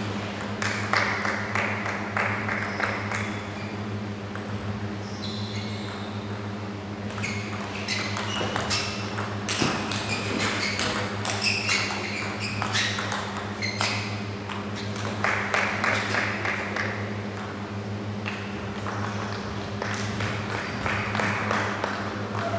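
Table tennis rallies: the ball clicks sharply off the bats and the table in quick exchanges, with short pauses between points. A steady low hum runs underneath.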